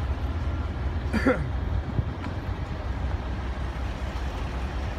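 Vintage tractor engines rumbling low and steady as tractors come along a country lane. A brief sliding, voice-like call sounds about a second in.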